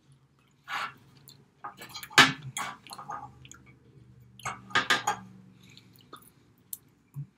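Close-up eating sounds: a metal fork scraping and clinking against a ceramic baking dish, and chewing of baked cheese omelet, in scattered short bursts with the sharpest clink about two seconds in.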